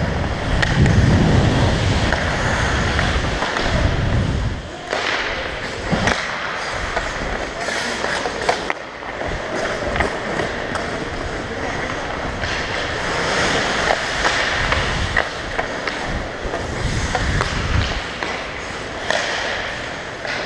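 Ice hockey heard from a helmet-mounted camera: skate blades scraping the ice, with sharp clacks of sticks and puck here and there and players' voices. A heavy low rumble covers the microphone for the first few seconds and again near the end.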